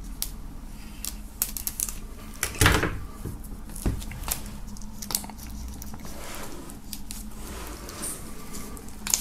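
Cutter blade slitting the shrink-wrap film along the edge of a hardcover book, with plastic crinkling and small handling clicks. The film makes a louder scratchy rasp about a third of the way in and a sharp click about a second later.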